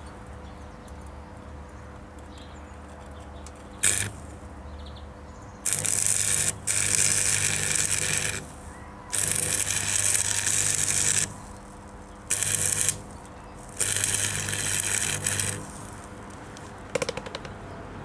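Electric arc welding on the cart's torn-off axle bracket: the arc crackles and hisses in several runs of one to three seconds, each with a low hum under it. A brief sharp strike comes about four seconds in.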